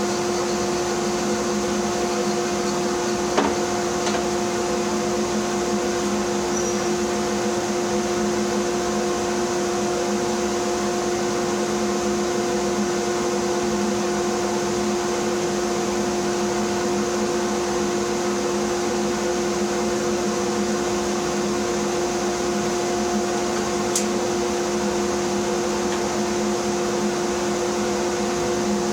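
Bandsaw running steadily, a constant motor hum with a whirring band, while a tray is cut from a wooden block. There are faint clicks a few seconds in and near the end.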